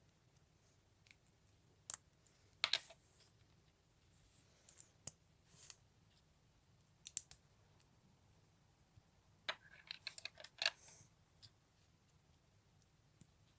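Plastic building bricks clicking as they are handled and pressed together: scattered sharp clicks, with a quick run of them about two-thirds of the way through.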